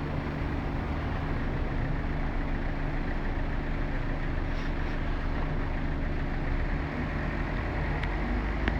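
Motorbike engine idling steadily, a constant low hum with no revving.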